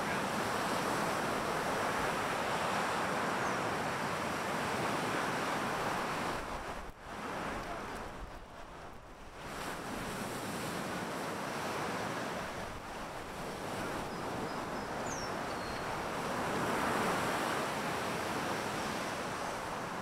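Surf breaking on a sandy beach, rising and falling as waves roll in, with a lull about seven seconds in and another wave swelling near the end.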